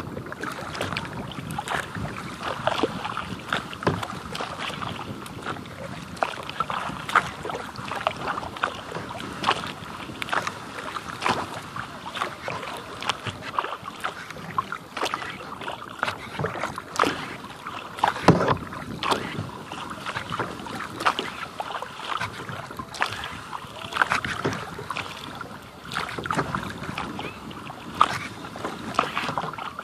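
Water splashing, dripping and lapping around a plastic kayak on a lake, with many small irregular splashes over a steady watery hiss.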